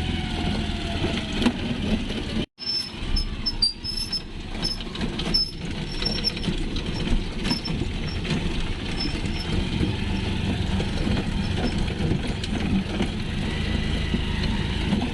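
Motorcycle-sidecar tricycle running on a ride, a steady engine and road rumble; the sound drops out for an instant about two and a half seconds in.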